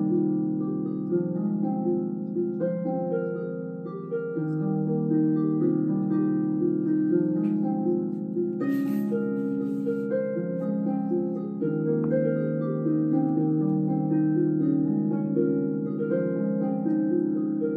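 Slow medieval-ambience harp music, overlapping plucked notes. About halfway through, the rustle of a paperback page being turned, and a soft knock a couple of seconds later.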